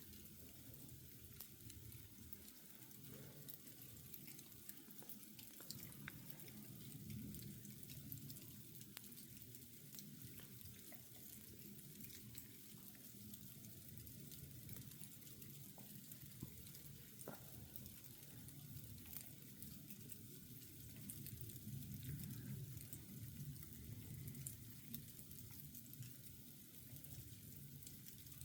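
Sleet falling, heard as a faint steady hiss with many tiny scattered ticks of pellets landing.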